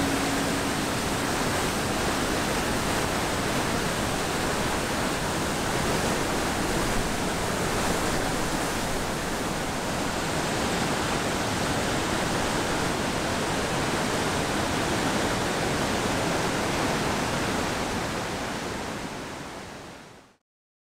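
Rushing water, a steady, even rush with no change in pitch, fading out near the end.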